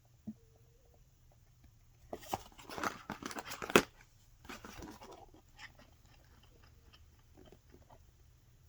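Paper and card being handled: a burst of crinkling and rustling about two seconds in that lasts a couple of seconds, then softer rustles, with a single soft knock near the start.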